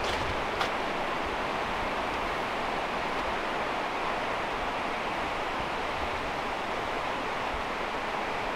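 Steady rush of flowing water from a stream, an even hiss that does not change.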